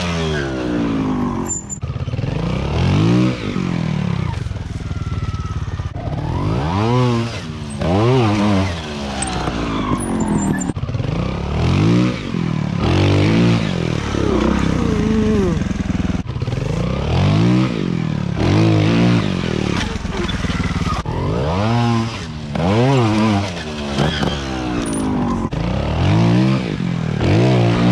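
Trials motorcycle engines revving in short throttle bursts, each rising sharply in pitch and falling back, about every one to two seconds, as the bikes are ridden up a steep rock slope.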